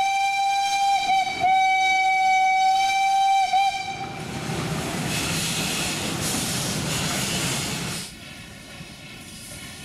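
Steam locomotive whistle blowing: a short toot, then a long steady blast of about two seconds, followed by several seconds of hissing steam. Near the end the sound drops abruptly to a quieter, steady background noise.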